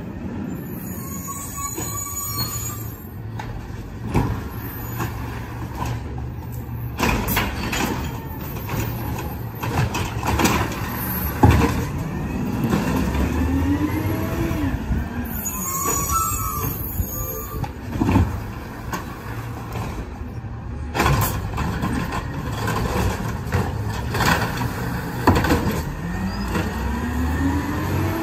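Peterbilt 320 garbage truck with an Amrep automated side loader working a collection route: the engine revs up and falls back twice as the hydraulic arm cycles, with clanks and knocks from the carts being handled. Two bursts of air hiss, one near the start and one about halfway through.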